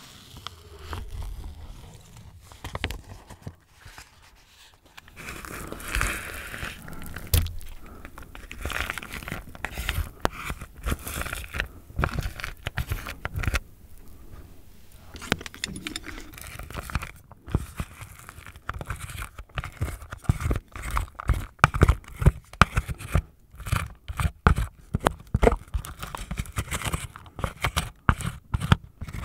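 Plastic instant-rice tray being opened and emptied: the film lid is peeled off, then cooked rice is tipped into a pot of ramen and scraped out of the tray with a wooden spoon. The second half is a run of quick scraping taps.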